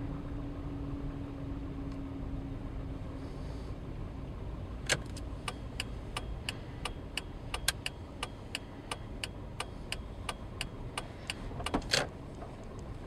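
Car interior at low speed: steady engine and road rumble, with the turn indicator ticking evenly about three times a second from about five seconds in as the car turns off the road. A louder knock comes near the end.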